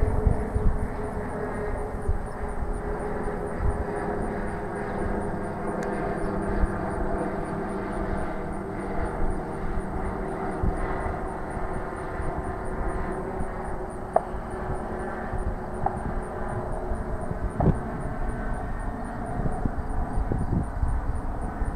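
A steady engine drone with a few held tones, continuous throughout, with a few faint clicks in the second half.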